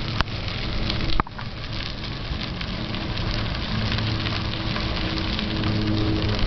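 Bicycle tyres rolling over a crushed-stone trail, a steady crackle of small stones under the wheels, with a sharp knock about a second in.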